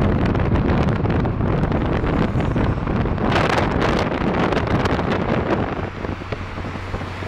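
Wind buffeting the microphone over car and road noise, with a stronger gust about three seconds in; a steady low engine hum comes up near the end.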